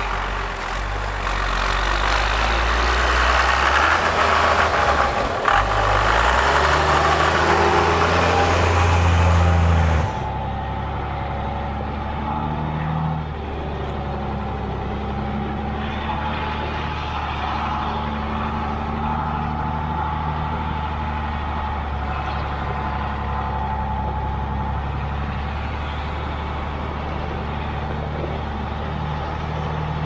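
1994 Dodge Ram 2500's 5.9-liter Cummins turbodiesel running as the truck drives through snow. For the first ten seconds a loud rushing noise covers the engine, whose pitch rises near the end of that stretch. It then gives way abruptly to a steadier, lower diesel note with less hiss.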